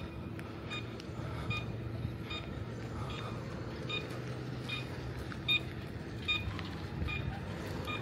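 A vehicle's reversing alarm beeps steadily, about once every three-quarters of a second, over the steady hum of an engine running.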